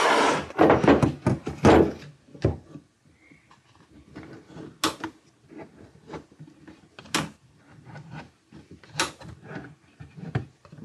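Metal drawer glides scraping and clicking as a plywood side panel is worked onto a stack of drawers: a loud scraping rustle in the first two seconds, then a few sharp, separate clicks spread through the rest.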